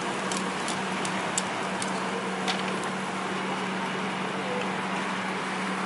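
Meat skewers sizzling on a charcoal grill, a steady hiss with scattered sharp crackles and pops, mostly in the first half, over a steady low hum.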